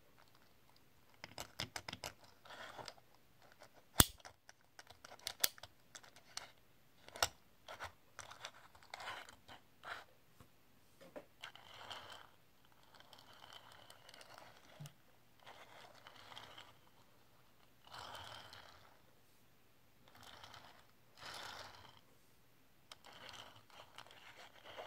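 A Tomica 1/65 scale diecast Mercedes-AMG GT R being handled: a run of sharp small clicks and taps, then the toy car pushed back and forth on a tabletop, its wheels rolling in bursts of about a second each.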